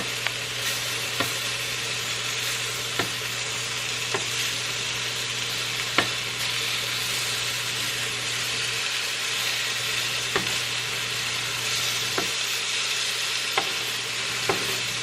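Chicken pieces sizzling in olive oil in a frying pan, a steady hiss, with a utensil clicking against the pan every second or two as the pieces are broken up and turned.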